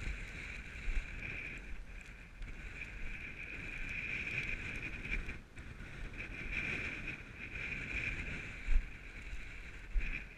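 Strong wind buffeting an action camera's microphone: a steady rushing hiss over low rumbling gusts, with a few low thumps, the loudest near the end.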